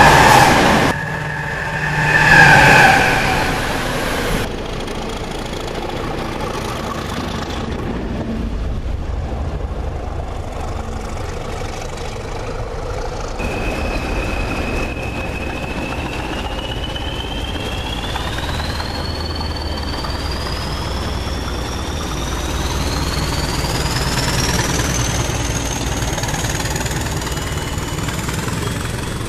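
English Electric eight-cylinder diesel engines of HNRail Class 20 locomotives working hard as the train pulls past. A deep drone runs under a turbocharger whistle that climbs steadily in pitch over about fifteen seconds. In the first three seconds there are two loud sounds as another locomotive passes at speed.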